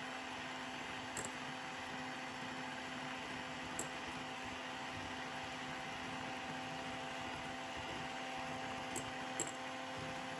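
Electric hand mixer running at a steady speed, its twin whisk beaters whipping cream in a glass bowl: an even motor hum with a few faint clicks.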